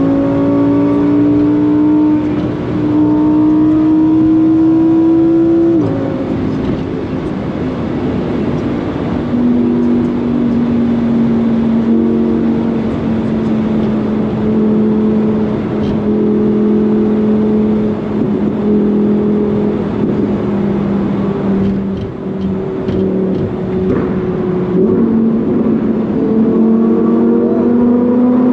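Lamborghini Huracán Performante's naturally aspirated V10 accelerating hard, its note rising with a brief dip at a gear change, then falling off sharply about six seconds in. It then runs at a steady, slowly falling pitch before climbing again near the end.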